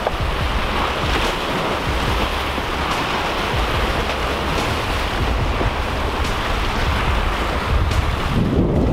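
Surf washing and breaking against the boulders of a rock jetty, with wind buffeting the microphone in a steady low rumble.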